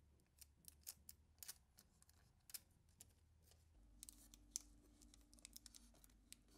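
Near silence, with faint scattered ticks and crinkles of plastic release tape being folded and pressed into the inside corner of a wooden batten barrier.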